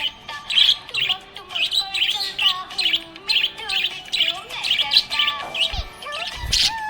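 Budgerigar chirping in quick short notes, two to three a second, over steady held tones lower down, with two brief low thumps near the end.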